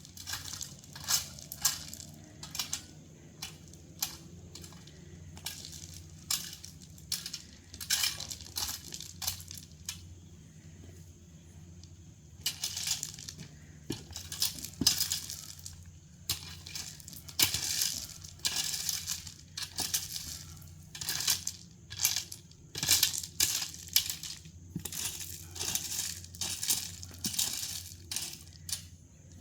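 Crushed rock crunching and clinking as it is shovelled and spread, in many irregular strokes with a few longer scrapes, over a steady low hum.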